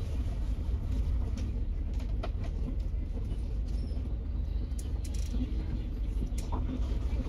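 Steady low rumble of the ferry's engines heard inside the passenger cabin while the boat waits at the pier, with faint passenger chatter and a few light clicks.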